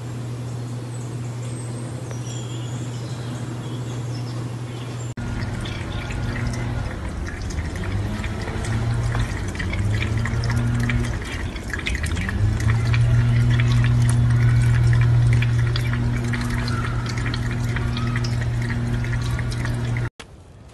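A steady low hum for about five seconds. Then a cat lapping water from a glass in a stainless-steel sink: a dense run of small wet clicks and drips over a low hum that breaks off and returns.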